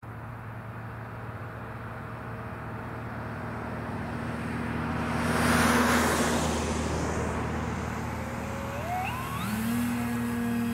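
The motor and propeller of a radio-controlled K 8b glider model spin up with a whine that climbs in steps, then settle into a steady buzz at power as the model is hand-launched near the end. A steady low hum runs underneath, and a broad rushing noise swells and fades around the middle.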